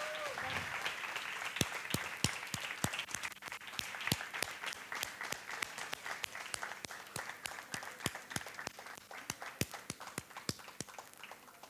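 Audience applauding, a dense patter of many hands clapping that thins out and fades away near the end.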